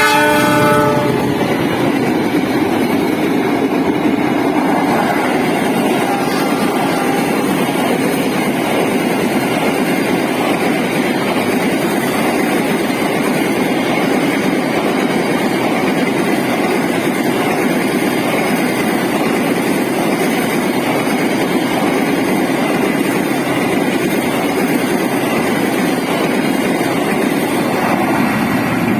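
A diesel locomotive's horn chord dies away about a second in, then a train runs past at close range: a steady rumble with wheels clattering over the rail joints.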